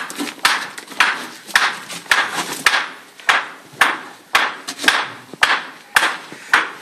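Footsteps crunching on the gravelly rock floor of a mine tunnel, a steady walking pace of about two steps a second.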